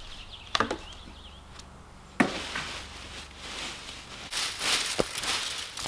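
Dry leaf litter and dead twigs rustling and crackling as brush is gathered up by hand, with sharp twig cracks just over half a second in and, loudest, about two seconds in.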